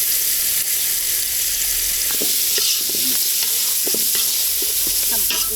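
Camel meat frying in hot oil in a cooking pot, a steady loud sizzle, as the harees is started and spices are added.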